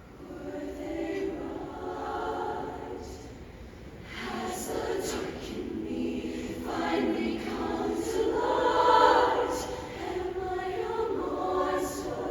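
Show choir singing in sustained chords, with many voices, swelling louder from about four seconds in and peaking near the ninth second.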